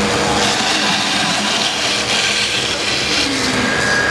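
HG-1325 CNC router spindle running, its end mill cutting through a polyfoam block: a steady machine hum with a hissing cutting noise. The hiss is strongest through the middle and eases a little near the end.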